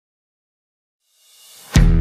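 Dead silence, then a swell rising about a second in that breaks into loud backing music with a heavy drum and bass hit near the end.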